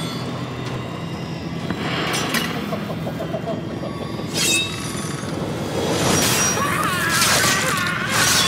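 Horror film soundtrack: dark music under sharp metallic crashes and ringing clangs, which come thicker in the last few seconds.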